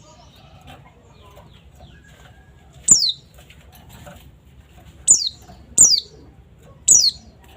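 Pleci (white-eye) giving short, sharp, high calls that sweep downward in pitch, four of them spaced a second or two apart.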